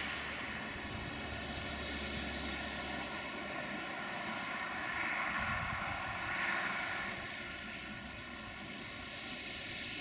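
Electroputere LDE2100 (060-DA) diesel-electric locomotive approaching under power: a steady engine note topped by a high, multi-toned whistling whine, the whistle this unit is known for. It swells about five to seven seconds in.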